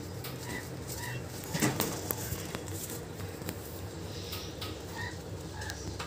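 Young pet parakeets giving a few soft, short chirps spread across a few seconds, with a couple of sharp clicks about two seconds in.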